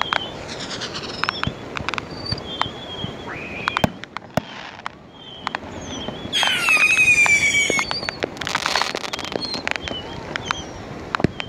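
Fireworks being set off along a beach: scattered pops and bangs, a whistle rising about a third of the way in, then a loud whistle falling in pitch from about six to eight seconds in, followed by a short crackling hiss.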